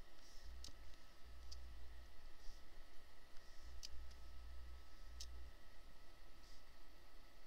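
Four sharp clicks at irregular intervals of one to two seconds, with a few softer ticks between, from the mouse or pen used at the computer while the view is panned around the artwork, over faint room tone.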